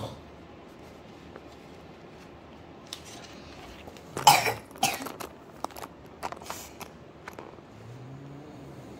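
Someone coughing twice in quick succession about four seconds in, followed by soft crackles and clicks from a sticker sheet being handled.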